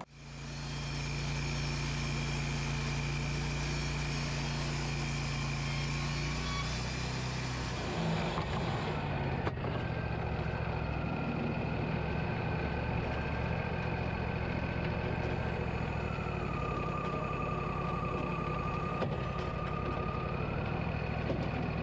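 Wood-Mizer LT40 band sawmill running, its engine a steady hum. The sound changes about eight seconds in and then runs steadily again.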